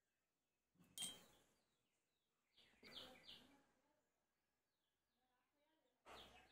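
Faint sounds of glassware being handled on a table: a sharp clink about a second in, a brief cluster of short bright sounds around three seconds, and liquid beginning to pour from a glass into a jug near the end.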